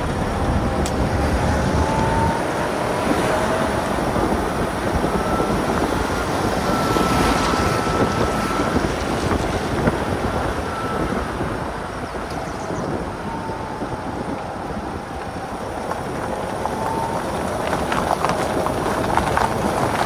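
Car on the move: steady wind and road noise, with a faint whine that slowly rises and falls in pitch.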